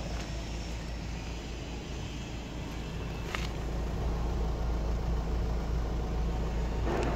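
Audi A4 B8's 2.0 TDI CAGA four-cylinder diesel engine idling steadily, heard at the twin exhaust tailpipes; it gets a little louder about halfway through. There is a brief click about three seconds in.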